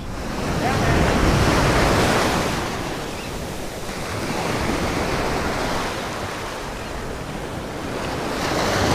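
Ocean surf washing onto a beach, the noise swelling and fading in three surges about three and a half seconds apart, with wind buffeting the microphone.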